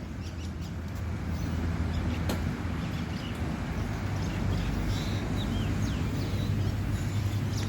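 A steady low machine hum, with faint bird chirps above it and an occasional light click.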